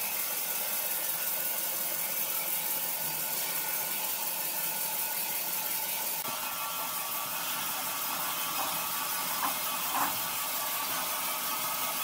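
Steady hissing noise, even in level throughout, with two short faint squeaks near the end.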